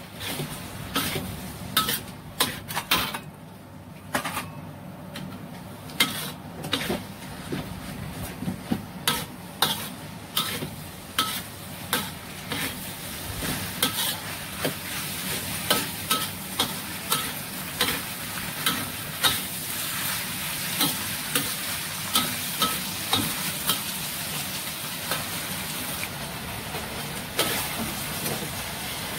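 Stir-frying in a metal wok: beef and vegetables sizzling steadily while a metal spatula scrapes and clanks against the wok about once or twice a second. The spatula strikes die away near the end, leaving the sizzle.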